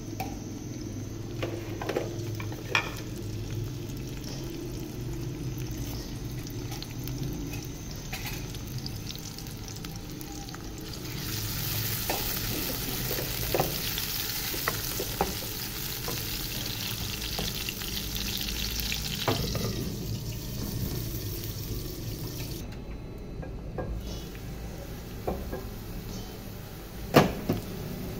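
Chopped onions frying in oil in a metal karahi, sizzling steadily, louder for a stretch in the middle as the heat rises. A wooden spoon stirs them, with scattered small clicks and a few sharp knocks against the pan near the end.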